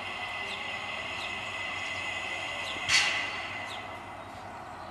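Narrow-gauge steam locomotive 99 773 standing with steam hissing steadily and faint high chirps repeating about once a second. About three seconds in comes a sudden loud hiss of steam that dies away over about a second.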